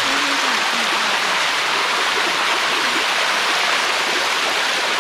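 Water rushing steadily down a cascading waterfall, a constant even hiss with no breaks.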